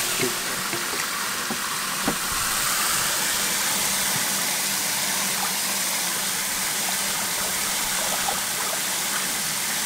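Water running steadily in a continuous stream.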